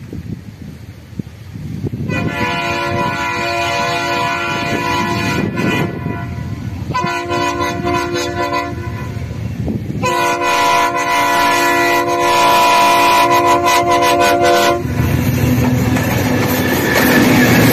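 DF7G-C diesel locomotive sounding its horn, a chord of several tones, in three long blasts as it approaches. It then passes close by, its engine and wheels on the rails loud.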